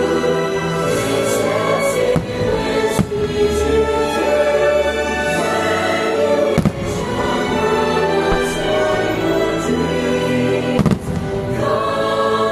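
Fireworks show music playing steadily, with aerial firework shells bursting over it in several sharp bangs spaced a second or more apart.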